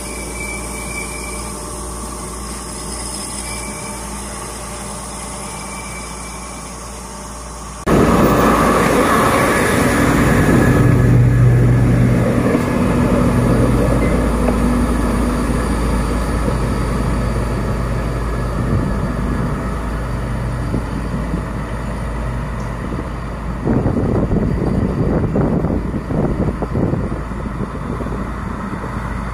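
D11H diesel-hydraulic locomotive running: first a quieter low rumble from an engine some way off. About 8 s in the sound jumps to a locomotive running close by, a loud steady low engine hum. From about 24 s an irregular rattling clatter joins in.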